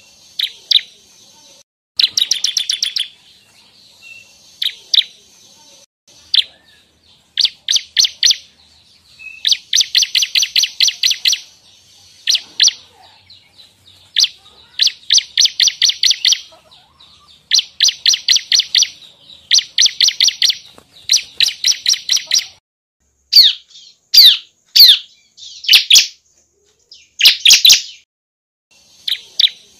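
Bar-winged prinia (ciblek) singing: a string of rapid, high trills, each lasting a second or two with short pauses between. A few sharp, falling single notes come near the end.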